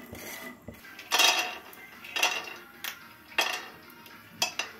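Nuts being stirred and shifted around a frying pan with a wooden spatula: a series of short clattering and scraping sounds, the loudest about a second in.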